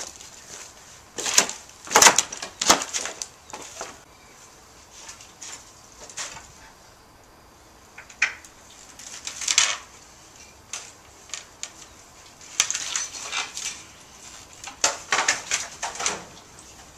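Dry stalks, twigs and brush crackling and snapping underfoot as someone pushes through overgrown weeds, in three uneven bursts of sharp clicks and rustles with quieter gaps between.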